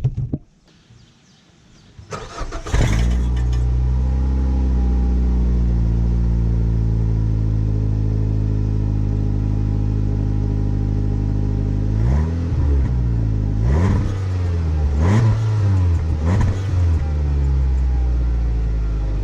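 Mazda 3's engine being started, catching after a short crank, then idling steadily. About two-thirds of the way in, the throttle is blipped four times in quick succession, each rev rising and falling back to idle.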